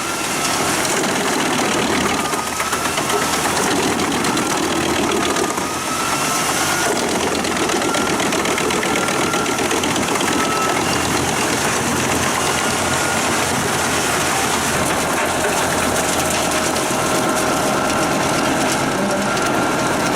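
Pezzolato PTH 1200/1000 drum wood chipper, driven by a 500 hp Claas Xerion 5000 tractor, running steadily under load as it chips logs. The tractor engine mixes with the screeching of steel blades cutting wood.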